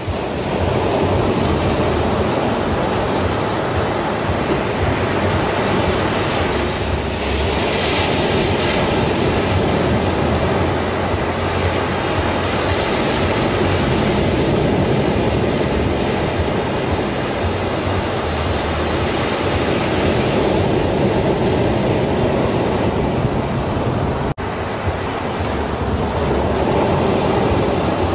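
Sea surf: small waves breaking and washing up on a beach in a steady rush, swelling every few seconds, with a momentary dropout in the sound near the end.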